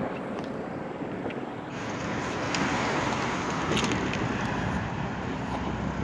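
Steady rush of road traffic, cars passing on the bridge, with a few faint clicks near the middle.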